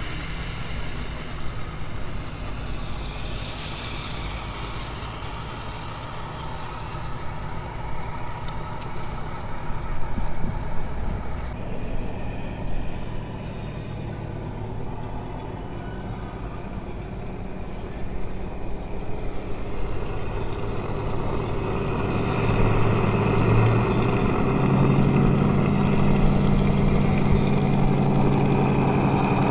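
A vehicle engine running steadily, which grows louder about two-thirds of the way through and ends as a steady low drone.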